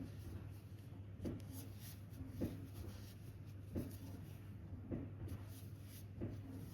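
Crochet hook working yarn in hand: soft rubbing with a light knock roughly every second as each stitch is made, over a steady low hum.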